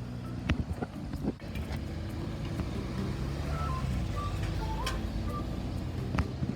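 A passing vehicle's low, steady running noise, with a few sharp clicks, under light background music that plays a short repeating melody.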